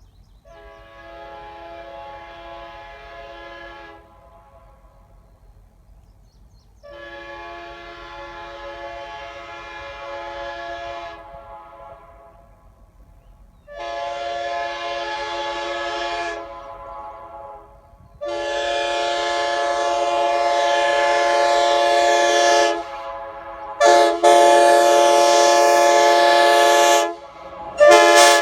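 USA Train Horns RC3 three-chime air horn sounding its chord in a series of blasts of two to four seconds each, with one brief toot near the end. Each blast is louder than the one before.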